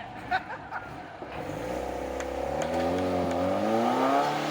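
Off-road vehicle engine revving up, its pitch climbing and then wavering under load, with a sharp knock about a third of a second in.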